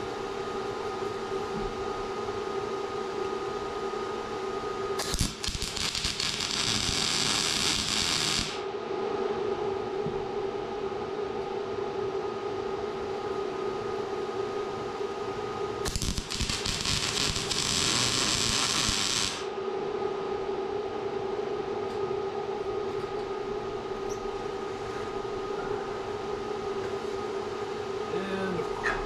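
Two TIG tack welds on a steel air-bag mount, each about three seconds of crackling hiss from the arc that starts and stops sharply, the first about five seconds in and the second about sixteen seconds in. A steady hum runs underneath.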